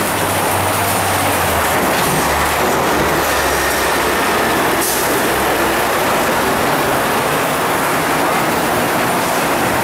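Steady traffic noise from a busy city street, with the low hum of vehicle engines.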